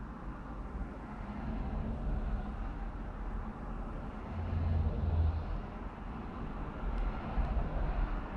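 Steady low vehicle rumble heard from inside a stopped car, swelling briefly about halfway through.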